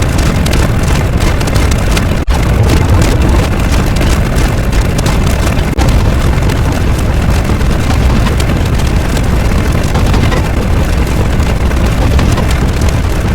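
A loud, steady rumbling noise with no clear pitch, briefly dipping about two seconds in and again near six seconds.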